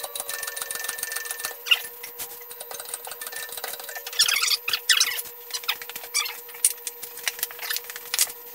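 Hydraulic toe jack and wooden blocking being worked under a heavy machine base: scattered clicks and knocks with short squeaks, the sharpest squeaks about four to five seconds in.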